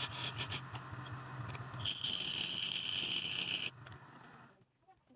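Wood lathe running while a turning tool scrapes the spinning wood, with a steady hum under the scraping. The cutting stops suddenly nearly four seconds in, leaving only faint ticks.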